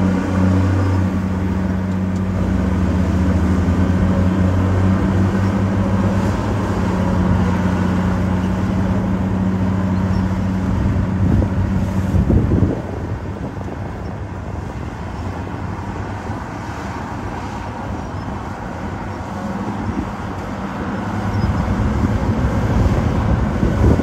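Diesel engines of crawler bulldozers, an old Komatsu among them, running steadily as they push dirt. The engine note drops abruptly about halfway through and grows louder again near the end.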